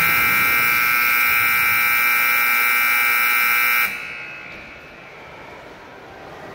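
Arena scoreboard horn giving one steady, loud blare of about four seconds that cuts off suddenly, leaving the rink's background noise.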